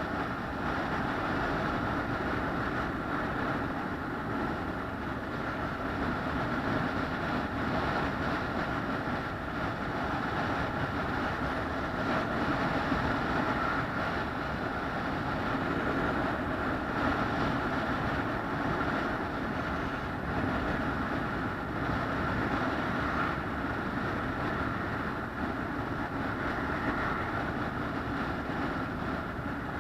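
Steady running noise of a vehicle in motion, an even drone and rumble that does not change.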